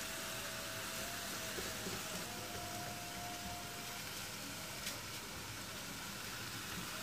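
Straw mushrooms and egg frying in a steel wok over a gas burner: a steady sizzling hiss as a spatula stirs them, with one sharp click about five seconds in.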